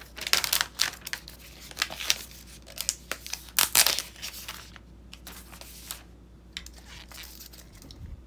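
Packaging of an Apple Magic Keyboard crinkling and tearing as it is opened, in a quick run of irregular crackles that thin out after about five seconds.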